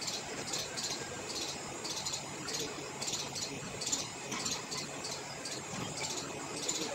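Insects chirping in short high-pitched bursts, about two a second, over faint background noise.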